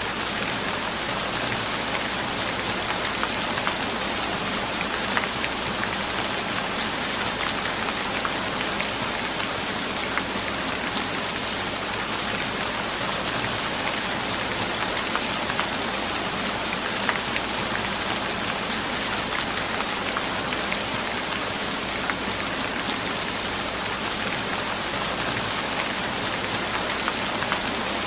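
Steady rain falling, with the hiss of the downpour and the fine patter of individual drops hitting a surface, even and unchanging.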